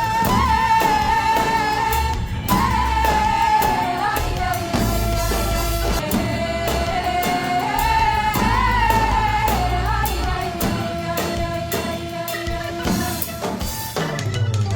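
Tunisian song: a voice sings a long, held, ornamented melody over a steady low beat.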